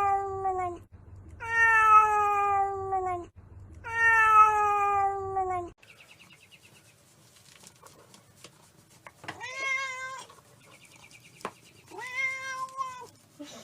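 Domestic cat meowing: long, drawn-out meows, each falling in pitch, come one after another in the first half. After a short pause, two shorter meows follow in the second half.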